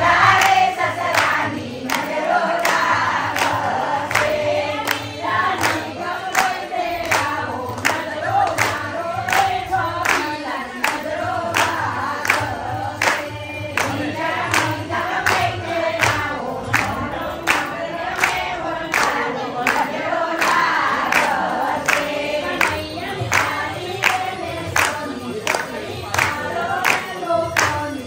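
A group of people singing a devotional song together, keeping time with steady hand claps, a little under two a second.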